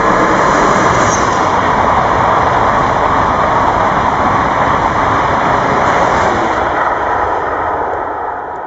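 Loud, steady rushing noise of a passing vehicle, easing slightly near the end before cutting off abruptly.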